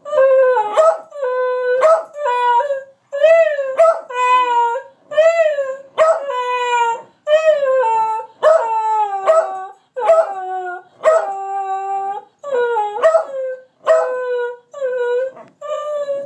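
Two beagles howling together in short, wavering calls, about one a second, one voice pitched above the other.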